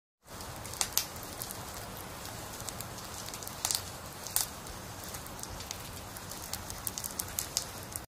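Fire crackling: a steady hiss with sharp pops scattered through it, the strongest about a second in and again near four seconds.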